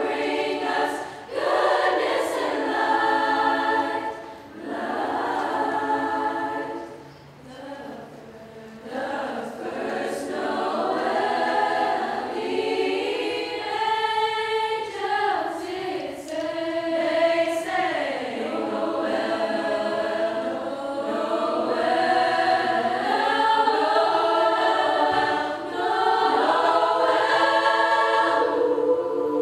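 High school choir singing a sustained, many-voiced passage, with a softer stretch about a quarter of the way through.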